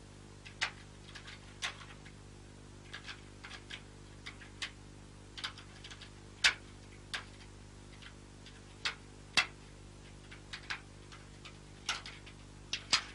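Light, irregular clicks and taps of small objects being handled on a table, one every half second to second or so, over a faint steady low hum.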